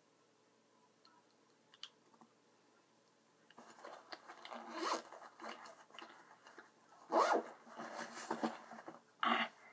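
Near quiet at first, then from about three and a half seconds in, rustling and rasping as small things are handled close to the microphone, with louder rasping strokes near five, seven and nine seconds.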